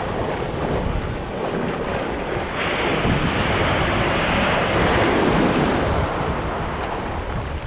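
Surf breaking on a beach, with wind rumbling on the microphone. About two and a half seconds in, a wave crashes and washes in, louder for a few seconds before it eases off.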